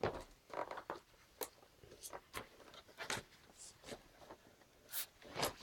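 Handling noise from a vintage pen tablet computer and its stylus: a string of irregular light clicks, taps and rustles, with a louder pair of clicks near the end.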